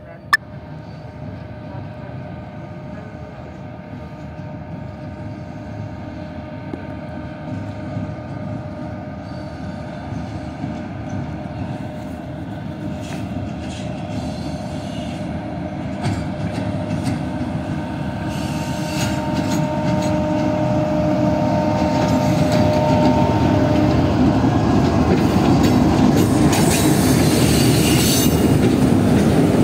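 A diesel locomotive hauling a passenger express approaches along the platform with a steady engine drone, growing steadily louder as it comes closer. Near the end the coaches roll past with the clatter and high squeal of the wheels.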